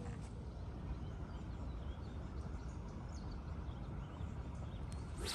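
Faint bird chirps over a steady low outdoor rumble, then near the end a quick rising swish as a feeder rod is cast.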